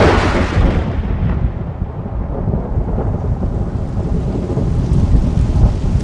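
Thunder: a sudden crack right at the start that fades over about a second, then a continuous low rumble.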